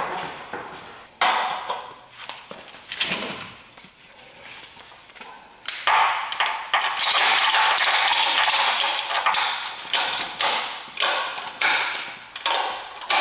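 A few sharp metal knocks. Then the webbing of a ratchet tie-down strap is pulled through its buckle with a long rasp, and the ratchet handle is cranked in quick strokes, each giving a short burst of clicks, as the strap is pulled tight over a steel frame.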